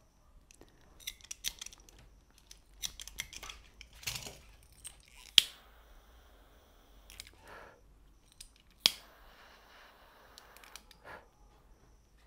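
Hand pliers and cutters working on rubber speargun bands: scattered small clicks and rustles, with two sharp snaps about five and nine seconds in.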